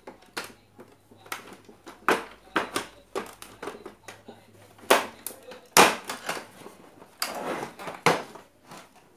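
Knocks, clicks and rattles from the plastic cabinet of an old National Panasonic radio-cassette player being handled and opened up. There is a longer scraping rustle about seven seconds in, as the front panel is lifted off the chassis.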